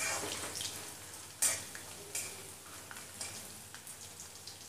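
Peanuts, curry leaves and green chillies frying in hot oil in a steel kadai, sizzling steadily while being stirred, with a few sharp clinks of the spoon against the pan, the loudest about one and a half seconds in.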